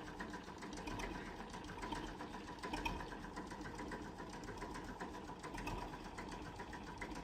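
An engine running steadily with a fast, even clatter, faint.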